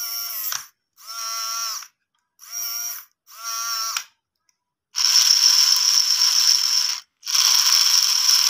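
Small geared DC motor on a homemade RC toy tractor whirring with its gearbox in separate bursts: four short bursts, then two longer, louder ones about halfway through, each stopping dead.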